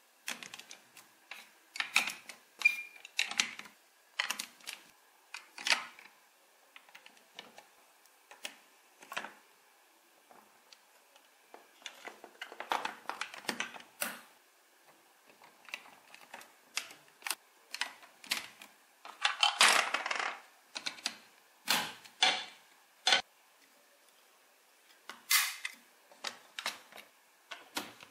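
Large plastic building bricks being handled and pressed together: irregular sharp clicks and clacks, with a couple of longer clattering stretches.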